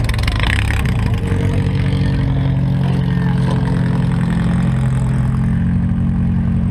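A modified four-cylinder demolition derby car's engine running at fairly steady revs, heard close up on board, with rattling and knocking in the first second.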